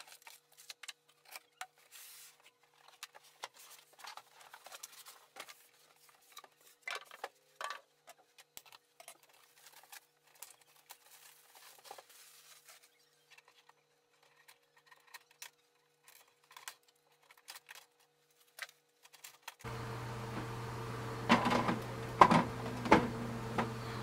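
Faint rustling and light taps and clicks of cardboard, paper and plastic packaging being handled as a printer is unpacked. About twenty seconds in, a steady low hum starts, with a few knocks over it.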